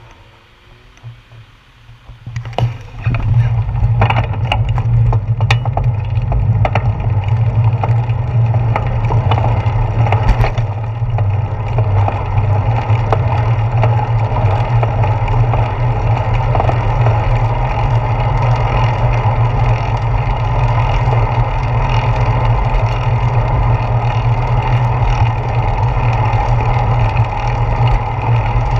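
Wind rushing over a handlebar-mounted GoPro Hero 4 and road rumble coming through a bicycle's handlebars as it sets off and rides. The rush starts about two and a half seconds in and then stays loud and steady, with a few sharp knocks early on.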